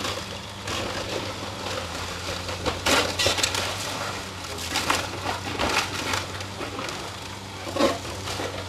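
Wooden roof framing cracking and splintering as an excavator's boom pulls a building apart, over the steady running of the machine's engine. The loudest cracks come about three seconds in and again near the end.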